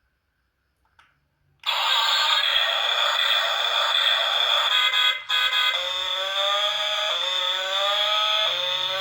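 Battery-powered toy's electronic sound effect from its small speaker, starting after about a second and a half of near silence: a dense, buzzy sound, joined from about halfway by a repeating rising wail, like a siren.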